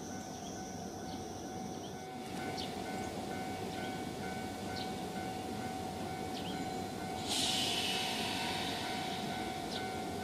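Nankai 2000 series electric train standing at a station platform, its equipment giving a steady hum with a pulsing whine over a low rumble. About seven seconds in, a sudden loud hiss of compressed air starts and keeps going.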